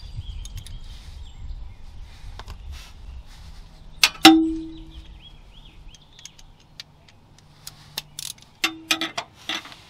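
Metal hand tools clinking against the steel exhaust hanger bracket under a car: one sharp, loud clink about four seconds in that rings briefly, then a quick run of lighter clicks and another short ring near the end as a wrench is fitted onto the bracket bolts.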